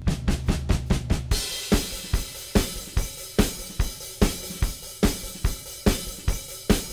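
Backing music led by a drum kit: a quick drum fill opens it, then a steady beat of bass and snare drum, about two and a half hits a second, under steady cymbals.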